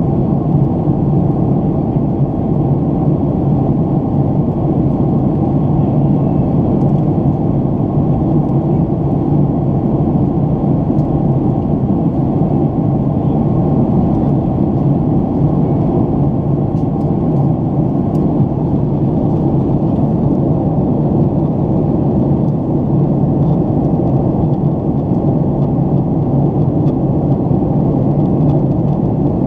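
Jet airliner's engines and airflow heard from inside the passenger cabin during the climb after takeoff: a loud, steady, low rumble that holds even throughout.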